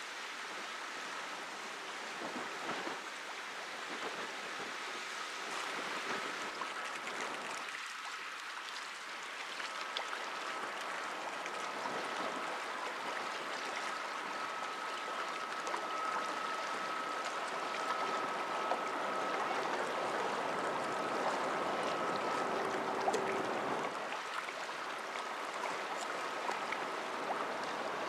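Shoreside river ambience: a steady hiss of water lapping and wind, with a faint steady high-pitched tone through the middle stretch and a brief lower tone near the end.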